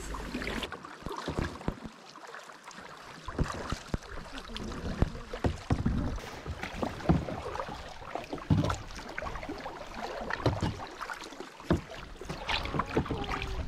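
Kayak paddle strokes dipping into the water, and water lapping and splashing against a plastic kayak's hull, heard as a string of irregular splashes and knocks.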